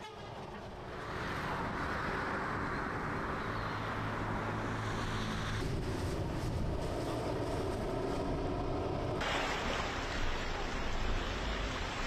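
Steady outdoor background noise, a rush of wind and water, with a low steady hum in the middle part. The sound changes abruptly twice.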